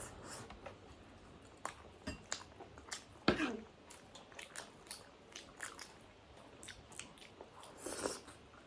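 Close-up eating sounds: someone chewing and biting into chicken momos, with many small wet mouth clicks and a louder click about three seconds in.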